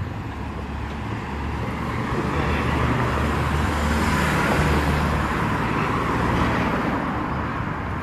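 A motor vehicle driving past close by on the street: engine hum and tyre noise swell, are loudest about halfway through, and fade away near the end.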